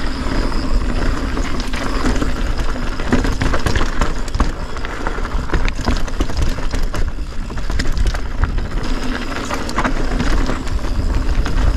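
Polygon Siskiu full-suspension mountain bike descending a packed dirt trail: tyres rolling over dirt and loose gravel, with the chain and frame clattering over bumps. Wind rumbles steadily on the camera microphone.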